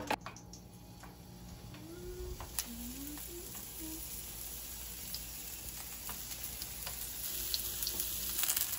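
Zucchini slices sizzling in hot olive oil in a frying pan, a steady sizzle that grows louder near the end.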